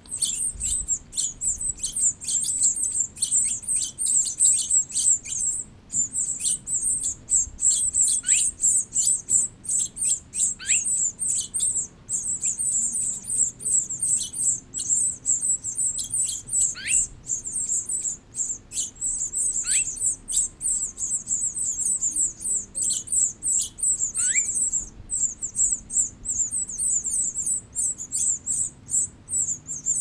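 Nestling birds in a nest begging with a continuous, rapid, high-pitched chirping. A few separate calls slide down in pitch, about five times.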